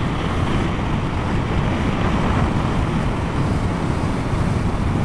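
Steady wind rush on the microphone of a rider's camera while riding a motorcycle at road speed, with the bike's running and road noise blended underneath.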